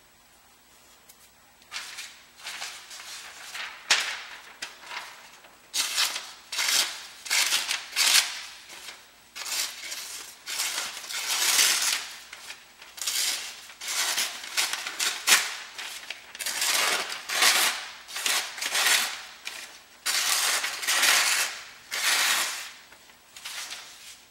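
A knife (a Swamp Rat Rodent Solution) slicing through phone book paper in a long series of quick strokes, each a short papery rustle and scrape, as a test of how sharp the edge still is.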